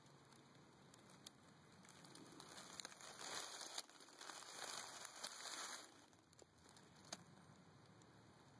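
Faint rustling and crinkling of dry leaves close to the microphone, swelling for a few seconds in the middle, with a few small ticks.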